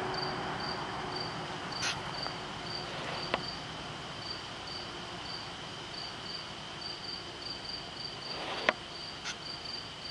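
Insects chirping in the woods: a rapid, even pulsing chirp with a steady high trill beneath it, with a few light clicks.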